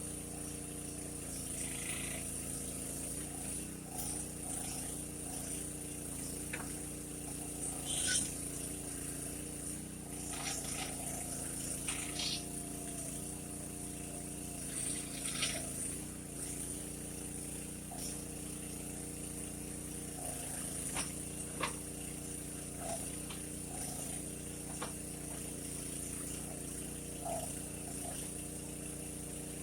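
Mini backhoe's engine running steadily while its hydraulics dig, the engine note sagging briefly under load a couple of times. Scattered knocks and scrapes of the bucket working the dirt.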